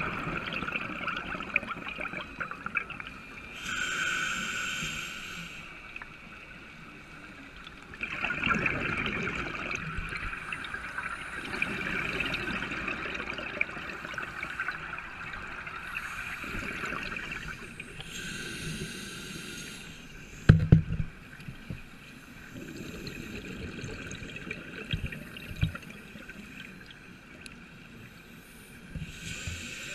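Scuba diver breathing through a regulator, heard through an underwater camera housing: hissing inhalations and bubbling exhalations in cycles every few seconds. A sharp knock sounds about twenty seconds in.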